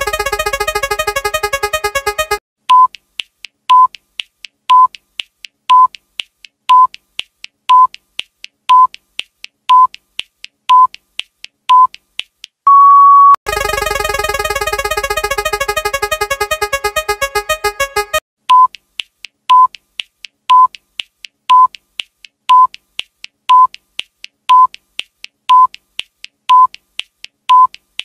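Electronic countdown timer beeping once a second, ten short beeps followed by one longer beep that marks time up. Before each run of beeps comes a couple of seconds of a dense synthesized jingle with rapid ticking. The whole sequence plays twice.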